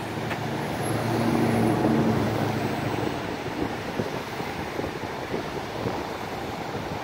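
Wind buffeting the microphone over the wash of breaking surf, with a low engine-like hum in the first three seconds.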